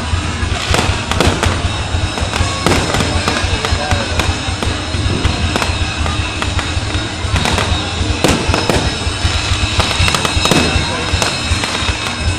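Aerial fireworks bursting in quick succession, a string of bangs and crackles, over music playing.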